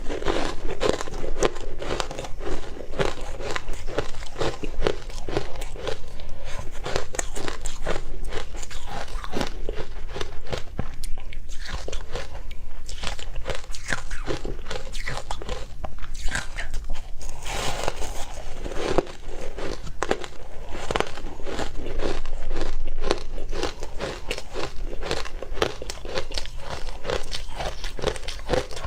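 Ice dusted with matcha powder being bitten and chewed close to the microphone: a dense, continuous run of crunches.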